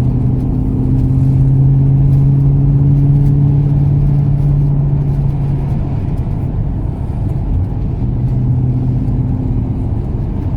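Ford AU Falcon XR8's 5.0-litre V8 droning under throttle, heard from inside the cabin. The drone holds steady, eases back about halfway through and picks up again near the end.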